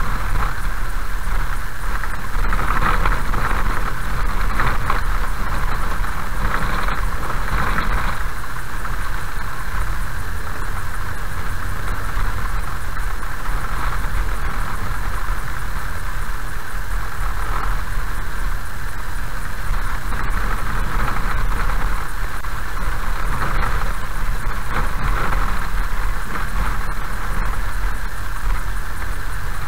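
Car driving slowly along a gravel road, heard from inside the cabin: steady engine and tyre rumble with gravel road noise, and a few faint ticks.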